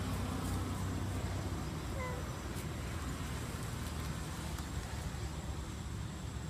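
A steady low rumble, with one short squeaky animal call about two seconds in.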